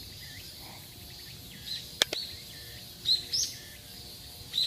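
A bird calling in short chirps, three or four times, with a sharp click about two seconds in.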